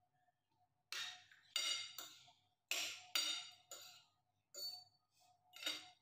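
Metal fork and spoon clinking and scraping against a plate while eating: about eight sharp, ringing strikes at an uneven pace.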